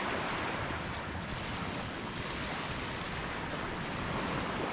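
Small waves washing on a sandy shore, an even steady hiss, with wind on the microphone.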